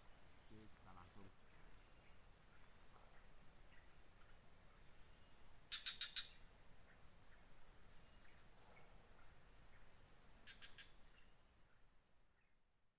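Steady, high-pitched drone of insects in the streamside vegetation, with a couple of brief chirps in the middle. It fades out near the end.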